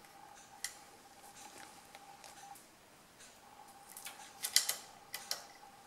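Steel saw chains clinking against a chainsaw bar and its metal hooks as they are hung by hand: a single light click, then a quick run of sharper metallic clicks about four to five seconds in. A faint steady whine runs underneath.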